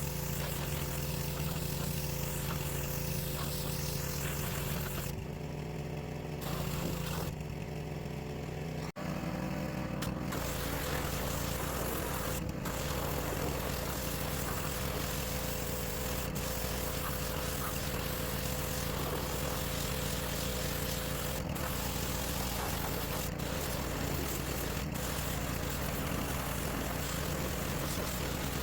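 Small-engine pressure washer running steadily, its engine hum under the hiss of the water spray. The spray stops twice for a second or so, about five and seven seconds in, leaving the engine running alone.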